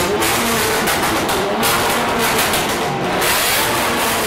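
Straight-piped BMW M5's 5.0-litre V10 being revved hard, its pitch climbing at the start and then held high and loud.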